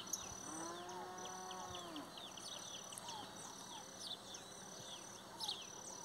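A cow moos once near the start, one smooth call of about a second and a half. Behind it many small birds chirp continuously, and a thin high note repeats in short stretches.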